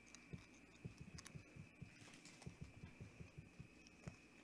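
Near silence: room tone with a faint steady high whine and faint soft low thumps several times a second.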